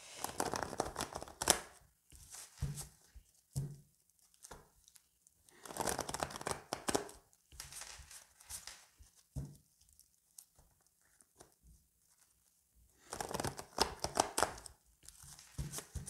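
A deck of oracle cards shuffled by hand: papery rustling and flicking in three longer bursts, near the start, about six seconds in and about thirteen seconds in, with short clicks of cards tapping between them.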